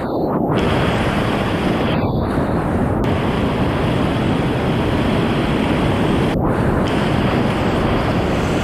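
Rushing whitewater of a mountain creek: a steady, loud, even roar of falling water.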